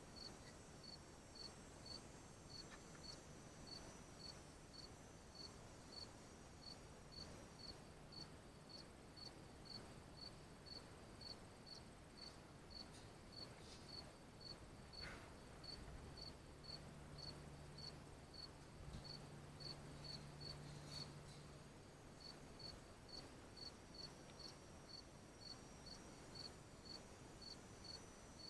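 Faint, steady run of short high-pitched chirps, about two a second, with a brief pause about three quarters of the way through.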